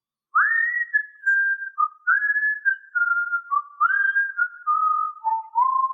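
A person whistling a melody, one clear unaccompanied tone that steps down through a phrase of held notes.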